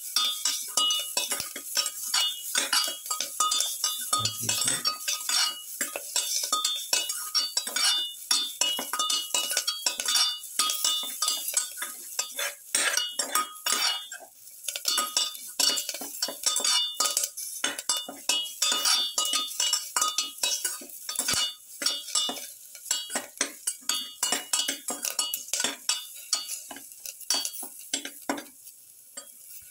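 A spoon stirring and scraping vegetables in a steel pot: a quick, continuous run of metal clinks and scrapes against the pot, easing off near the end.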